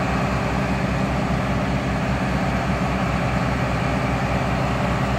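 Kubota L47 tractor-loader's diesel engine running steadily, with an even low throb.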